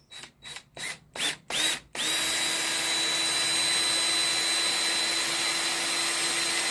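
Electric drill boring a bolt hole through wood: five quick trigger blips that rise in pitch, then about two seconds in it runs steadily at full speed.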